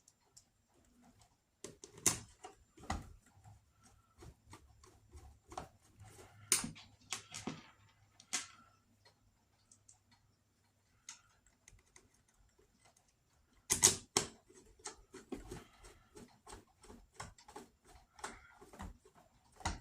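Small clicks and knocks of screws and plastic parts being handled and set into a Kirby vacuum cleaner's housing during reassembly, with one louder knock about two-thirds of the way through and a quick run of clicks after it.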